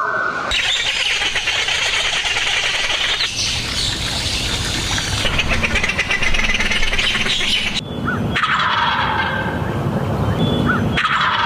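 Loud, rapidly pulsing bird calls that run on without a break. They change abruptly about three seconds in and again near eight and eleven seconds.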